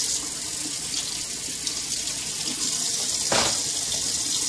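Kitchen faucet running steadily into a sink, a continuous hiss of water. About three seconds in there is one brief splash as hands work in a basin of washing water.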